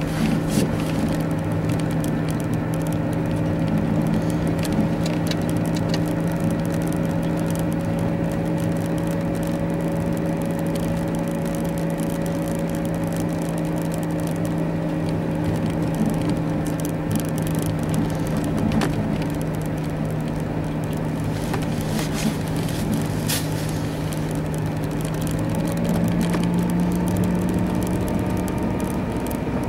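Car cabin noise while driving on a snowy road: a steady engine drone over tyre and road noise, with a few faint clicks. The drone rises slightly near the end.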